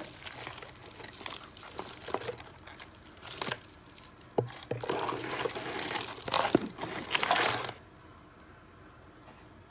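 A tangled heap of costume jewelry (metal bangles, chains and beads) rustling and clinking as a hand digs through it in a cardboard box, with sharp clicks throughout; the handling stops about three-quarters of the way through.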